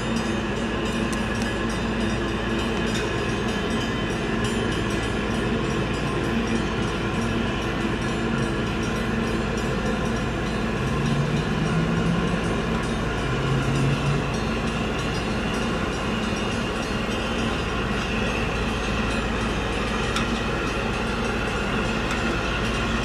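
A tugboat's diesel engines drone steadily as it pushes a grain barge past. A deep hum swells briefly about halfway through.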